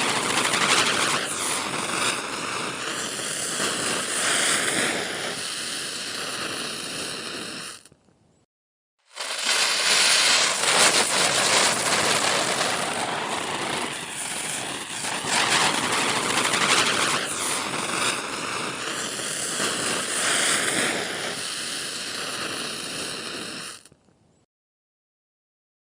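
Spinning ground firecracker (chakri) fizzing and hissing with a wavering, whirling sweep. It stops about eight seconds in, starts again a second later, and stops again near the end.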